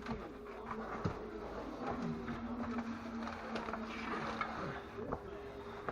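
Faint scattered clicks and light taps of hand tools and bolts on metal, with a low hum that starts about two seconds in and stops near the end.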